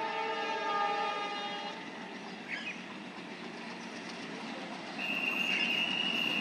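Horn of an approaching train sounding a steady multi-note chord for about two seconds, over the low rumble of the train running in the distance. A single higher steady tone sounds for over a second near the end.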